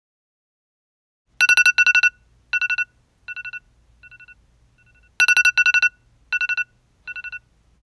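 Smartphone alarm tone going off: groups of rapid electronic beeps starting about a second and a half in, each group fainter than the one before, with the pattern starting over loud about four seconds later.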